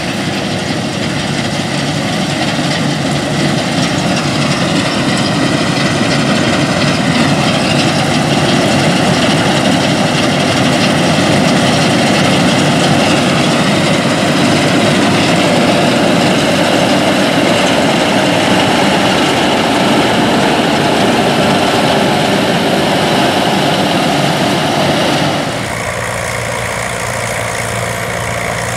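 Case 600 self-propelled combine running steadily while harvesting, its engine and machinery working together. About 25 seconds in the sound changes suddenly: it becomes a little quieter, with less low rumble.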